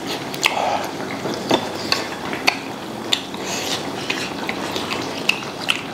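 Chopsticks knocking and stirring in a pot of hot pot on a portable gas stove: sharp clicks about once a second over a steady background hiss.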